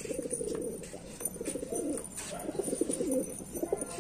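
Domestic pigeons cooing: a low, wavering coo that goes on with short pauses.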